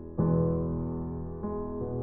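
Soft background piano music, slow chords struck about a fifth of a second in and again near the end.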